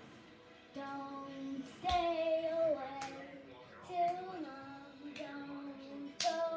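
A young girl singing long held notes that step up and down in pitch, starting about a second in, with a few sharp hits along the way.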